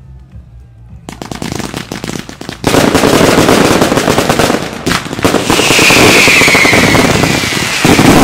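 Daytime fireworks firing in a dense barrage. Crackling starts about a second in and becomes a loud, continuous mass of crackles and bangs a moment later. A slowly falling whistle runs over it in the second half.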